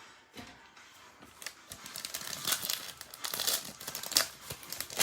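Trading-card pack wrapper crinkling and cards being handled: quiet for about the first second, then a busy run of irregular crackling and rustling.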